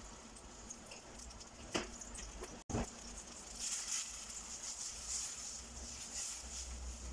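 A wooden spatula stirs ground spices into oil in a stainless steel pot, making uneven soft scraping strokes from about halfway through. Before that there are two light knocks.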